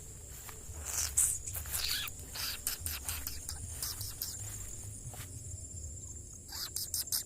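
Insects, such as crickets, keep up a steady high-pitched chirring. Over it come irregular rustling and crackling sounds close by, busiest in the first few seconds and again near the end.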